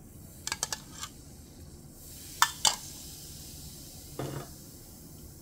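A metal spoon clicking and tapping against a small bottle cap: a few light clicks about half a second in, two sharper clicks about two and a half seconds in, then a short dull scrape near the end.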